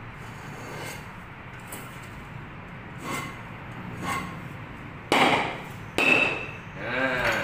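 Steel blade scraping into a lightweight aerated concrete (hebel) block along a scored line, with a few small knocks. Then three loud, crunching knocks about a second apart near the end as the blade strikes and the block cracks apart at the line.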